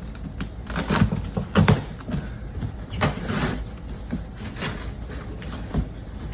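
A cardboard box being opened by hand: irregular rustling and scraping with scattered knocks.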